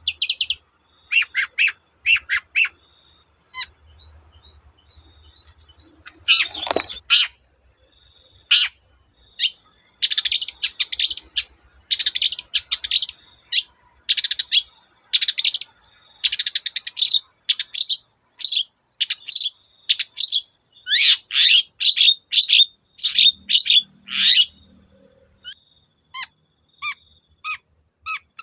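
Long-tailed shrike (cendet) singing in rapid runs of short, sharp chirps mixed with harsher notes. After a few opening notes it pauses for a few seconds, gives one louder harsh call, then sings a dense, fast run of phrases.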